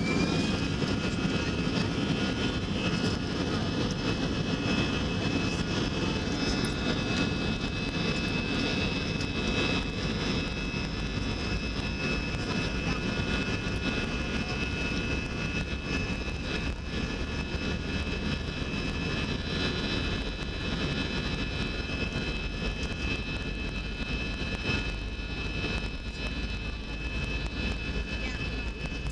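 Airliner engines heard from inside the cabin during a ground roll on the runway: a steady whine that finishes rising about half a second in, over a constant low rumble from the engines and the wheels on the runway.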